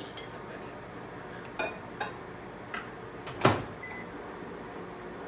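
Several light clinks and knocks, the loudest about three and a half seconds in, from a glass pouring cup and tools while molten soft plastic is hand-poured into a swimbait mold. A steady low hum runs underneath.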